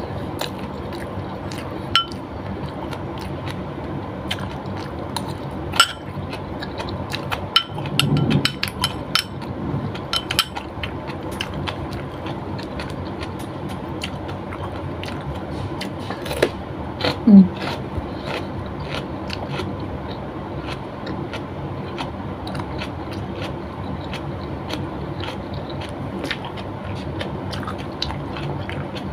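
Eating by hand at a glass dish: scattered small clicks and clinks of food and glassware, bunched around eight to ten seconds in and again around seventeen seconds, over a steady background rushing noise.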